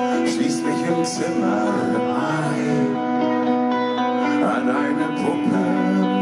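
Live rock band playing a slow instrumental passage with long held notes, loud and steady.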